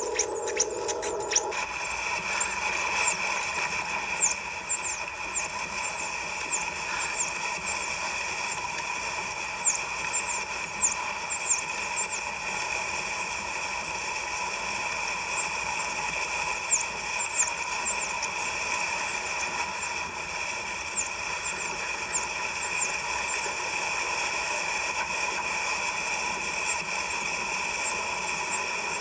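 Dolphins whistling: many short, high, falling squeals, one after another, over a steady hum, heard as playback through a screen's speaker.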